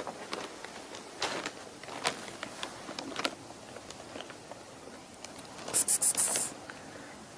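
Scattered soft crunches and clicks of movement on snow, with a brief loud hissing rustle about six seconds in.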